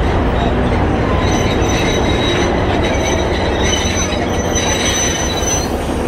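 Alishan Forest Railway train moving, its wheels squealing in high steady tones from about a second in until near the end, over a steady low rumble.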